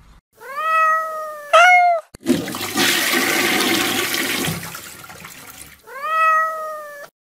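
A cat meowing: a long meow, then a shorter, higher, louder one, and another long meow near the end. In between, a few seconds of rushing water.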